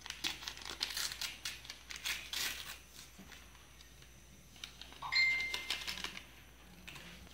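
Paper gelatine packet crinkling and crackling as it is handled and its powder shaken into a bowl of water, with one ringing clink about five seconds in.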